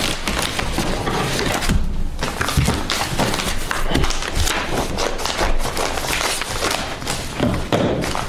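Paper documents being handled on a tabletop: pages rustling and flipping as a thick folder is leafed through, with many short taps and dull thumps of folders and envelopes on the table.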